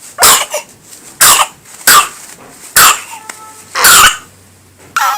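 A small child coughing repeatedly: six coughs about a second apart, the fifth a little longer than the rest.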